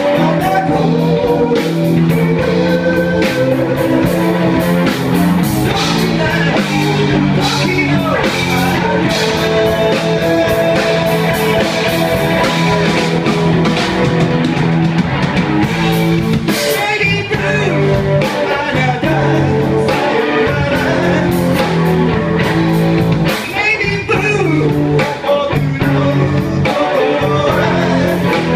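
Live rock band playing: electric guitar, bass guitar and drum kit, with a singing voice over the band.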